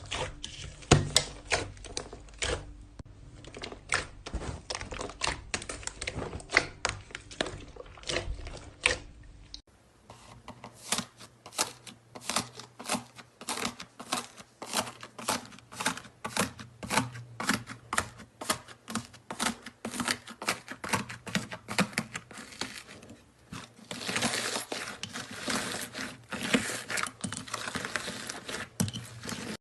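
Slime being squeezed and poked, giving rapid crackling clicks and pops of trapped air. There are two takes, with a cut about ten seconds in, and the clicking grows denser near the end.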